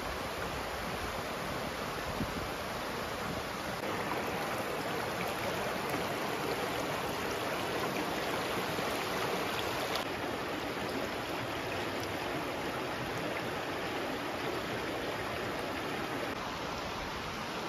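River water babbling steadily.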